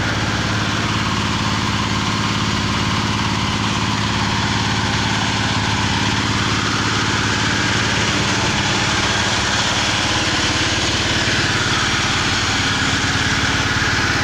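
Small petrol engine running steadily.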